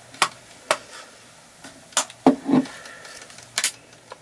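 Snap-on plastic back cover of a BLU R1 HD phone being pried off by hand, its stiff clips popping loose one after another in several sharp clicks.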